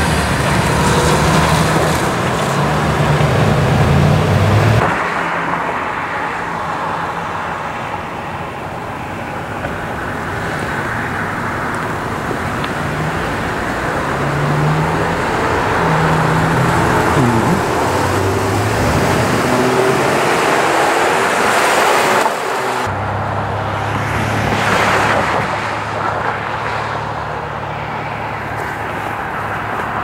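Street traffic: car engines running and vehicles passing on a wet, slushy road, with a low engine hum in the first few seconds. The background changes abruptly twice, at about 5 and 23 seconds in.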